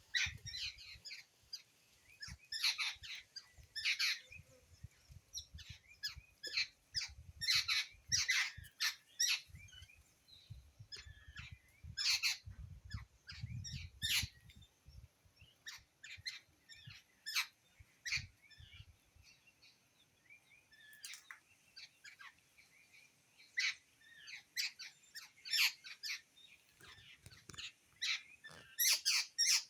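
Birds chirping and squeaking in many short, sharp, high calls, some in quick runs, others single, scattered irregularly throughout. A low rumble sits underneath for roughly the first two-thirds.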